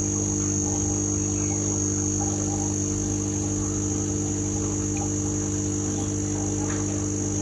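Steady machine hum with a constant high-pitched whine above it, unchanging throughout, with a few faint small clicks.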